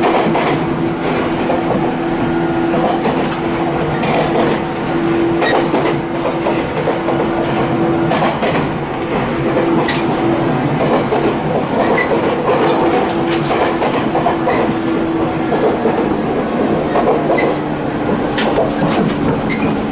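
Running noise inside a Jōmō Electric Railway electric train car, an ex-Keio Inokashira Line car: a steady motor and gear hum with wheels clicking over rail joints. The hum drops in pitch over the last few seconds.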